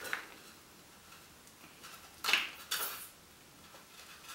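Handling noise from knotting a rubber balloon by hand: two short scraping, rustling sounds about two seconds in, otherwise faint.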